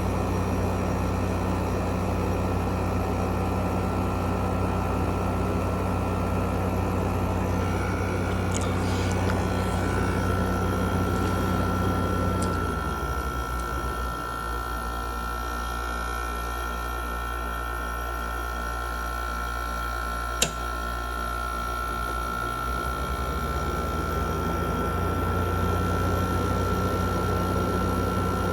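A 2016 Frigidaire window air conditioner running with a steady hum. Its low rumble drops away for about ten seconds midway and then returns. A single sharp click comes about two-thirds of the way through.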